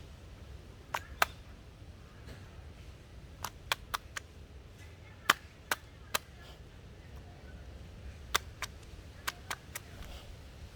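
Clothes being washed by hand, beaten against a surface: about fifteen sharp, irregular slaps, some in quick pairs and threes, with short gaps between.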